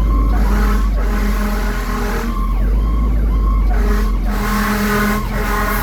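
Fire engine siren sounding on an emergency response, heard from inside the cab over the steady low rumble of the truck. Repeated falling glides are joined by long blasts of a steady low horn, each cut by short gaps.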